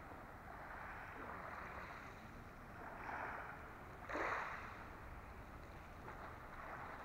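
Small waves lapping on a pebble shore: a faint hiss of water washing over the stones that swells and fades several times, loudest about four seconds in.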